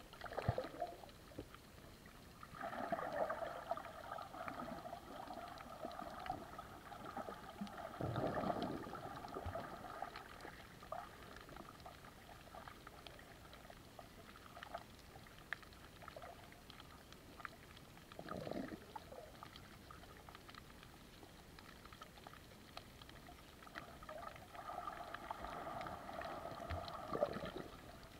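Muffled sound of water heard through a submerged camera, with scattered small knocks and a humming noise that swells for several seconds about three seconds in and again near the end.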